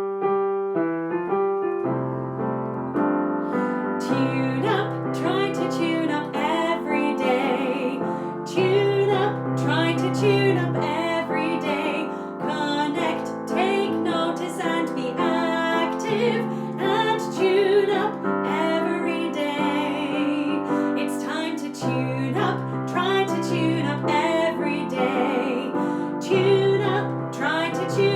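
Music led by piano, with chords over a pulsing bass line and a wavering melody above.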